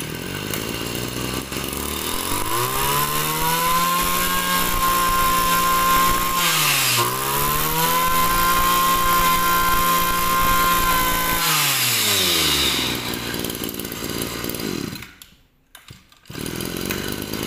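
Kawasaki TG20 brush cutter's small 20cc two-stroke engine, pull-started and revved up to a steady high speed. The throttle dips and comes back up about seven seconds in, then the engine drops to idle and stops about fifteen seconds in, and is started again near the end.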